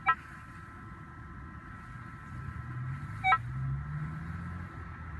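Minelab CTX 3030 metal detector sounding through its speaker over a buried target: a steady electronic tone with three short, sharp chirps, one right at the start, one about three seconds later and one near the end.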